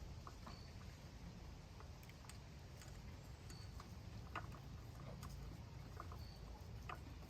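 Faint scattered clicks and light knocks from handling bike parts and hardware, with a short high chirp repeating about every three seconds.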